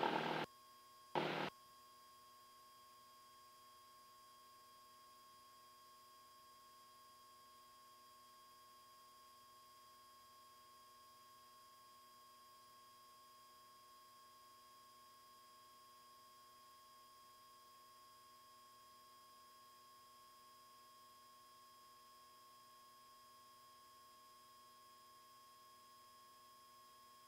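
Near silence with a faint steady electrical hum of several fixed tones, the strongest a thin whine. A louder noise cuts off right at the start, and one short burst comes about a second in.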